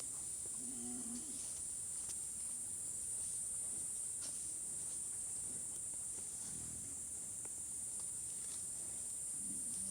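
Steady high-pitched insect chirring, like crickets, with a short low animal grunt about a second in.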